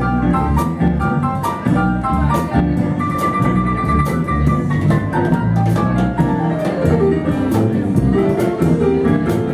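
A band playing an instrumental tune: a bass line, regular drum-kit hits and quick melodic notes on a bright, pitched instrument.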